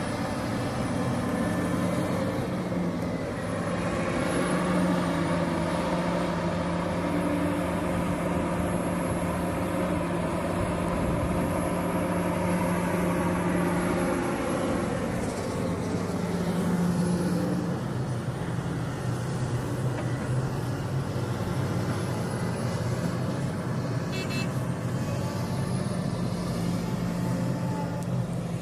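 Diesel engine of a large crawler excavator working under load, its note rising and falling as the hydraulics take up and release the load while it digs.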